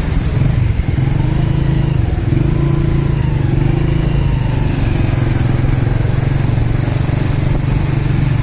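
A vehicle engine running steadily while driving along a city street, with faint rising and falling tones from surrounding traffic.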